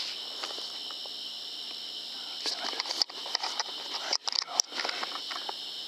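A night insect chorus of crickets or katydids, a steady high-pitched trilling. From about halfway through, short rustling and clicking noises come and go over it.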